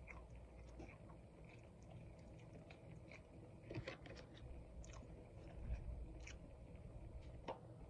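Close-miked chewing of a soft waffle sandwich, faint, with a few sharp wet mouth clicks scattered through it.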